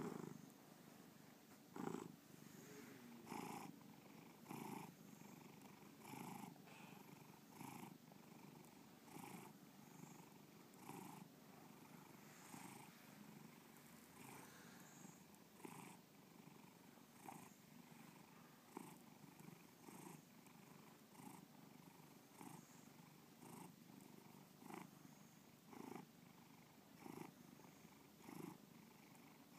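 Domestic cat purring, faint and close, swelling softly with each breath about once every second and a half.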